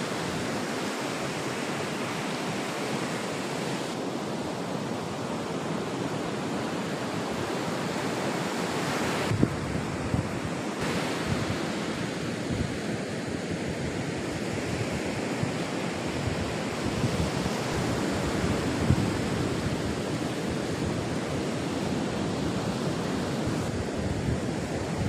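Surf breaking and washing up a sandy beach: a steady, continuous rush of small waves.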